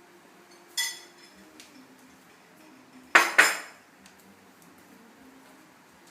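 A short ringing clink about a second in, then a louder double clatter around three seconds in, like dishes or cutlery knocking together.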